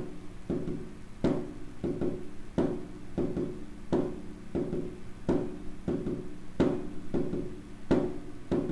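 Heart sounds with a fourth heart sound (S4): a regular gallop of soft thumps, S4 falling just before S1, then S2. This is an atrial gallop, the sign of a stiff, hypertrophied ventricle under pressure overload, as in hypertension, valvular stenosis or hypertrophic cardiomyopathy.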